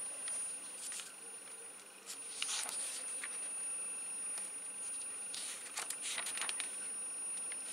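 Glossy catalogue pages rustling as a page is turned about two and a half seconds in, with more paper handling around six seconds. A steady high-pitched whine, a recording glitch, runs under it throughout.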